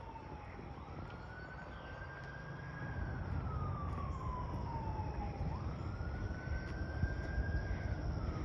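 Emergency vehicle siren on a slow wail. Its pitch climbs quickly, holds high, then slides down over a few seconds, about twice, over a low rumble.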